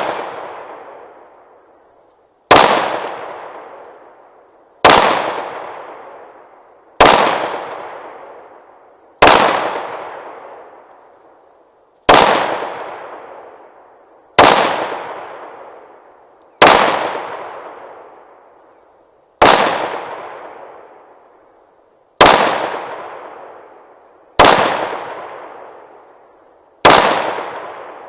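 Glock 19 9mm pistol fired in slow, deliberate single shots, eleven in all, about one every two and a half seconds. Each loud crack is followed by a long echoing tail that dies away before the next shot.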